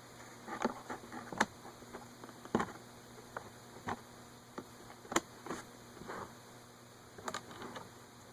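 Irregular light clicks and taps, about a dozen, of meter test-lead probes and capacitor wires being handled and pressed together by hand, over a faint steady hum.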